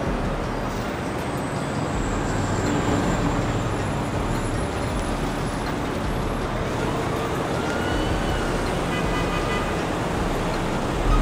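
Steady road traffic noise, an even wash of passing vehicles.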